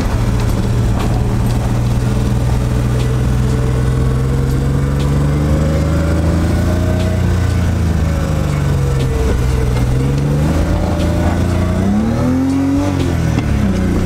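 BMW E30 325i's straight-six engine heard from inside the cabin while driving, over road noise. The revs climb slowly for several seconds and then fall away. Near the end they rise quickly and drop again.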